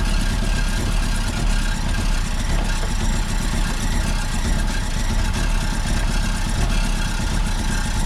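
Car engine running steadily and hard with its throttle held wide open by a brick on the gas pedal, being deliberately run to destruction while low on oil with water added to it.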